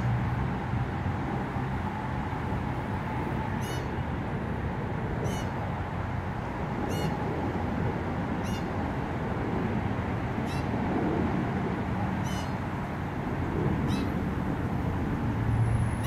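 Fledgling blue jay giving short, high calls, about one every one and a half seconds from about four seconds in, over a steady background hum.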